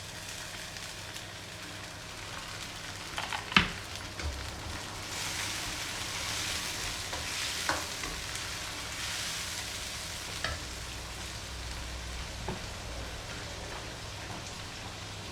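Onion, garlic, ginger and green chilies sizzling in hot oil in a pan, with a steady frying hiss. A spoon stirs them and knocks against the pan a few times, loudest about three and a half seconds in.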